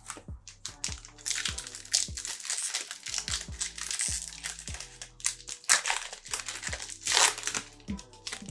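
A trading card pack's wrapper being torn open and crinkled, with many sharp crackles, over background music.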